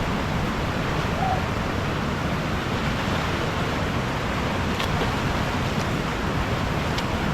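Steady, even rush of a waterfall and its flowing stream, with a faint click about five seconds in and another near the end.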